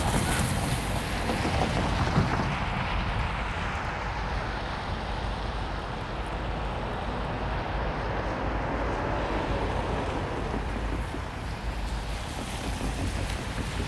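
Wind buffeting the microphone outdoors: a steady low rush with uneven gusty rumble.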